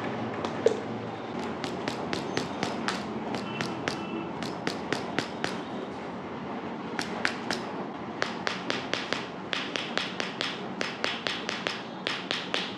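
A series of sharp taps or clicks, a few a second and irregular, with a pause about halfway through and coming faster near the end, over a steady hiss.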